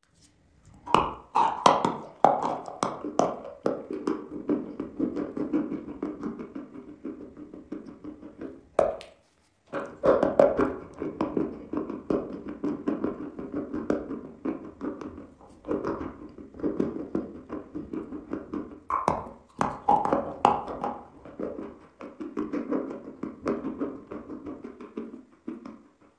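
A person biting and chewing dry yellow chalk. A quick run of sharp crunching bites comes in the first few seconds, then long stretches of steady chewing broken by fresh bites, with a short silence about nine seconds in.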